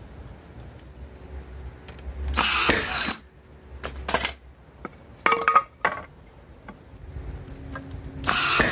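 Cordless nail gun firing nails into a pine and plywood frame: a few separate shots a second or more apart, each a short loud burst.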